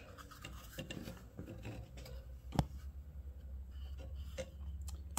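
Faint handling noise: light rubbing and scattered small clicks, with one sharper knock about two and a half seconds in, over a low steady hum.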